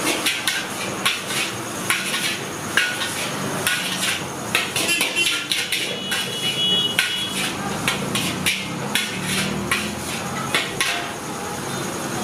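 A metal spatula clanging and scraping against a large wok as noodles are stir-fried. The strikes come quick and irregular.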